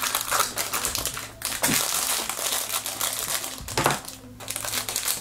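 Silver foil blind bag crinkling and crackling as hands take it out of its clear plastic capsule and handle it, in rustling spells with two short pauses.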